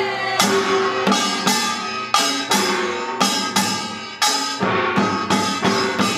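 Korean pungmul percussion: janggu and buk drums playing a steady beat, sharp ringing strikes about twice a second.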